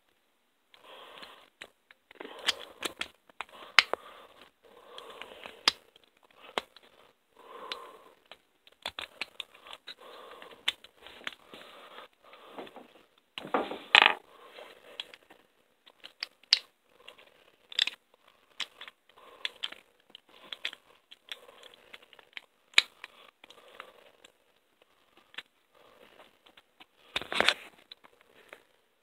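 Handling noise close to the microphone: scattered clicks, scrapes and rustling, with two louder crunching bumps, one about halfway and one near the end.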